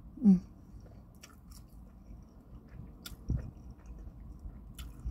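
Close-up chewing of soft chili cheese fries, with faint wet mouth clicks and smacks, opening with a short falling "mmm" of enjoyment. A dull thump a little over three seconds in.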